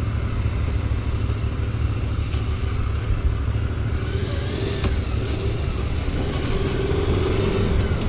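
Motorcycle engine running steadily under way, under a heavy low rumble of wind on the microphone, growing slightly louder near the end.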